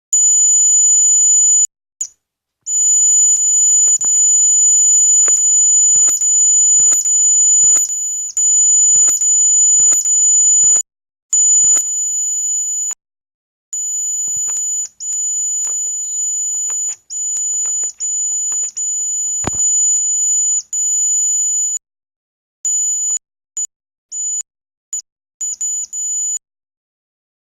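Buzzer of a homemade laser security alarm sounding a steady high-pitched tone, which means the laser beam to its sensor is broken. It cuts off and starts again several times, in long stretches at first and in short bursts near the end.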